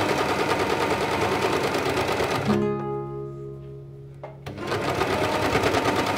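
Brother overlock serger running fast, stitching fabric with a rapid, even chatter, over background music. The machine sound drops away for about two seconds in the middle, leaving a few held musical notes, then starts again.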